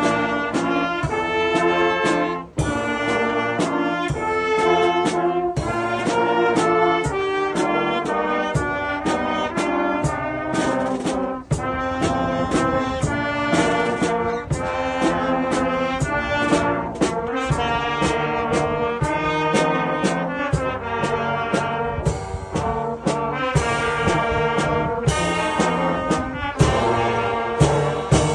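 Youth brass band playing a lively tune in full harmony, with percussion hits marking the beat.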